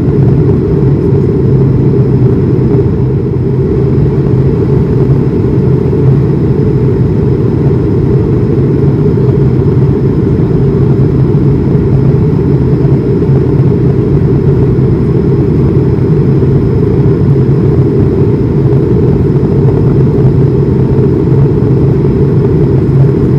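Steady, loud cabin noise of an Airbus A220-300 in flight, heard from a window seat: the rumble of its Pratt & Whitney PW1500G geared turbofans and the air rushing past the fuselage, with a faint high whine.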